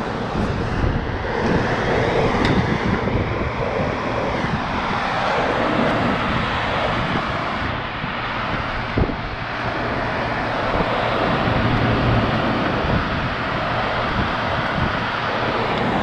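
Steady rushing noise, with wind buffeting the microphone.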